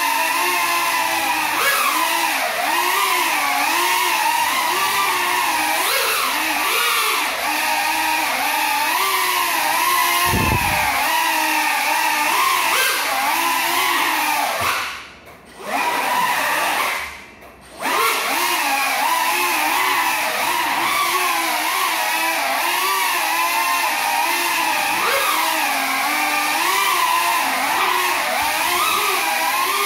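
Small FPV quadcopter's electric motors and propellers whining as it flies, the pitch constantly wavering up and down with the throttle; the drone is flying on broken propellers. The whine cuts out twice, briefly, about halfway through, and there is a short low thump a few seconds before that.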